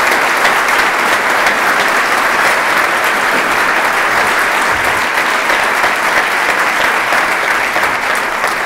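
Audience applauding steadily, many hands clapping together, dying away just after the end.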